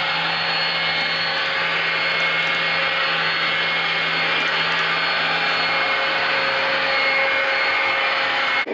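O scale model passenger train running on its track: a steady whir of motor and rolling wheels as the cars pass, cutting off suddenly near the end.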